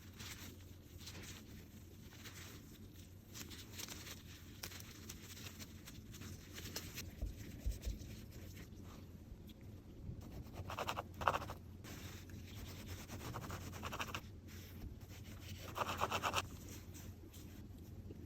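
Soft rubbing and scraping of food handling at a kitchen counter, with a few louder scratchy stretches about 11 and 16 seconds in, over a low steady hum.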